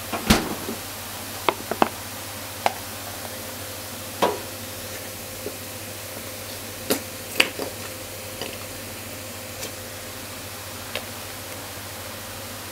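A frying pan of fried tofu and leeks sizzling with a steady soft hiss on a gas burner, while seasoning bottles are handled over it, giving about ten sharp clicks and knocks. The loudest knock comes just after the start.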